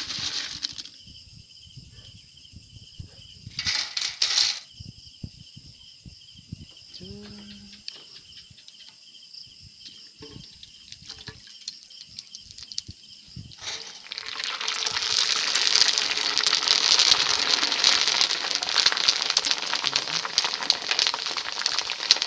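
Hot cooking oil sizzling and crackling densely as dried chicharon pellets fry and puff up, starting about 14 seconds in. Before that there is a steady high insect chirring, with two brief noisy bursts near the start and about 4 seconds in.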